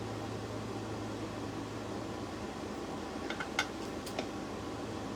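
Steady low hum, like a mechanical fan, with a few light clicks a little past halfway.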